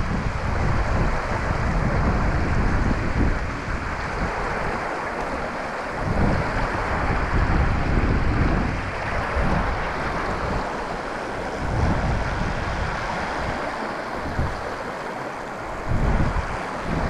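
Wind gusting against the microphone in uneven low rumbles, over a steady wash of sea waves on the shore.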